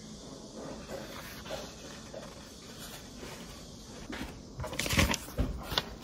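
Pages of a paperback book being turned by hand: soft paper rustling, with a louder flurry of page handling about four and a half to six seconds in.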